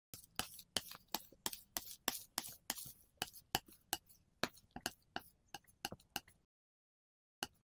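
A quick run of sharp taps, about three a second and slightly uneven, that stops suddenly about six and a half seconds in, with one last tap near the end.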